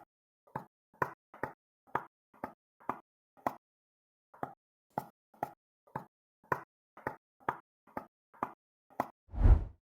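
A rhythmic run of short plopping notes, about two a second, with a pause of about a second midway, then a louder, deeper booming hit near the end, like an edited-in music or sound-effect track.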